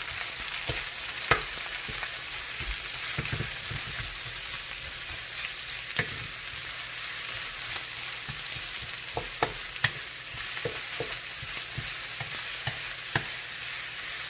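Garlic, onions and ginger sizzling steadily in hot cooking oil as they are stirred, with scattered sharp clicks and knocks of the utensil against the pan.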